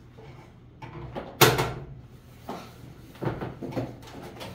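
A cardboard gun box being lifted up and set down on a wooden tabletop: one sharp knock about a second and a half in, then a few softer thumps as it is handled and placed.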